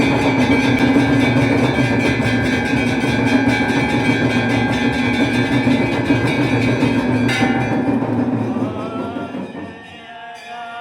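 Temple aarti percussion: fast, continuous clanging of temple bells over drumming, about five or six strikes a second. The clanging stops suddenly about seven seconds in, leaving a quieter wavering tone that fades away.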